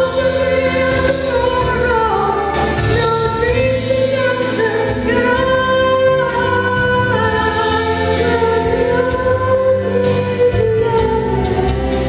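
Music: a choir of voices singing a song with long held notes over a steady instrumental beat.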